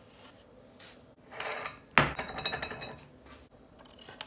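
A single sharp clink of hard objects striking, ringing briefly, about two seconds in, amid quieter rustling and handling noises.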